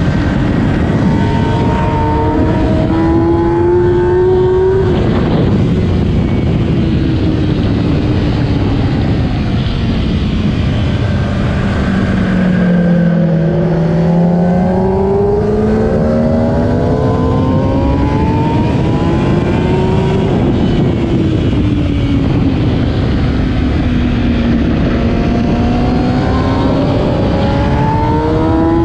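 2008 Kawasaki ZX-10R's inline-four engine at race pace under heavy wind rush, heard from on the bike. The engine note climbs with a break about five seconds in, sinks to its lowest just before the middle, then climbs and falls twice more as the bike accelerates and slows through corners.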